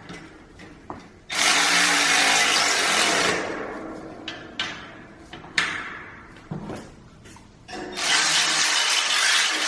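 Power drill driving Allen bolts in two runs of about two seconds each, each winding down afterwards, with small clicks and knocks of handling between.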